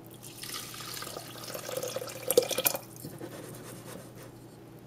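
Thick soup mix of dashi, soy sauce, miso and sake kasu poured from a glass bowl into a rice cooker's inner pot over raw rice, a splashing pour lasting about two and a half seconds. A few sharp clicks come as the pour finishes.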